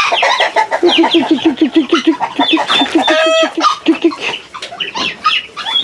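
A flock of young pullets peeping, many short falling chirps overlapping, over a rapid low ticking call of about eight pulses a second through the first few seconds.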